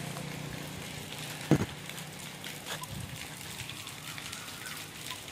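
Light rain pattering, with many small scattered drop ticks. One thump about a second and a half in.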